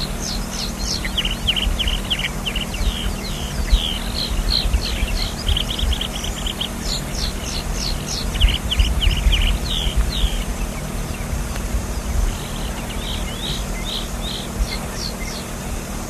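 Alpine pipit singing: bouts of rapid, high notes and short trills, several phrases with brief pauses between them, over a low steady rumble.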